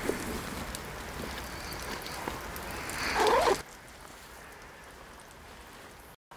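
Water trickling out of a hanging gravity water-filter bag, a steady hiss that drops away about three and a half seconds in, just after a short louder wavering sound.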